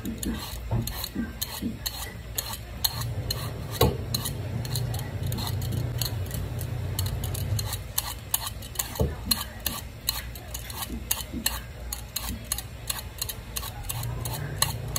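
A knife working on apples, peeling and cutting them into small pieces: a run of irregular light clicks and scrapes, several a second.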